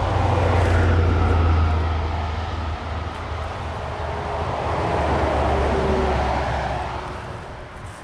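Motor vehicles passing one after another, the hum of engine and tyres swelling and fading twice.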